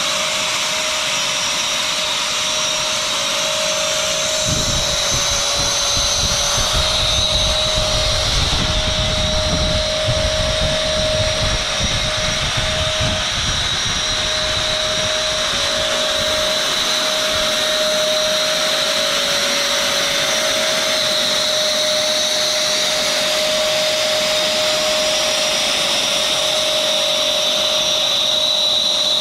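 Wall-climbing robot running: a steady whine with a constant held tone over a rushing noise, like a blower. A low rumble joins it from about five seconds in until about sixteen seconds in.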